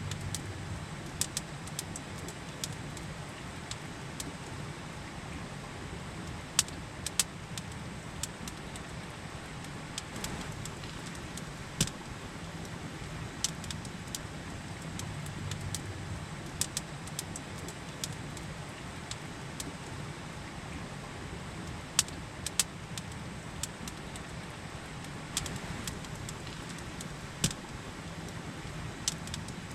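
Campfire crackling, with irregular sharp pops of wood, a few of them loud, over the steady rush of a river.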